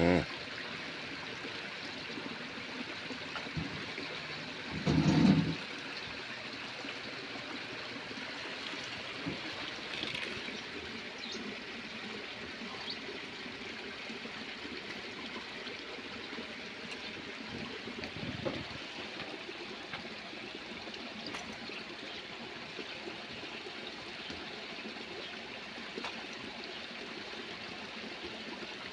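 Steady rush of running water, even and unbroken. A short voice-like sound rises over it about five seconds in, and a fainter one comes later.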